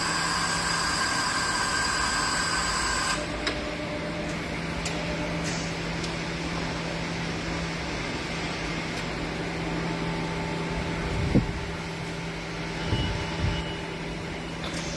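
Makino BN2-85-A6 CNC milling machine running. A whine of several steady high tones cuts off about three seconds in, leaving a steady low hum, with a few clicks and a couple of short thumps in the second half.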